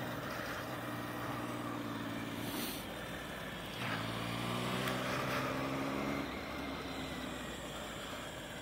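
Motorcycle engine running as the bike is ridden through track corners, with wind noise over it. The engine picks up about four seconds in as the throttle opens, then eases off a couple of seconds later.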